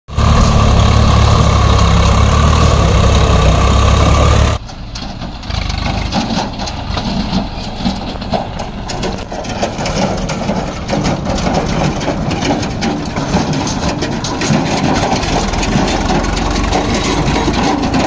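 A loud, steady sound with a held tone cuts off abruptly about four and a half seconds in. A Swaraj 744 FE tractor's three-cylinder diesel engine then runs as the tractor drives, towing a trailer, with rattling over the uneven ground.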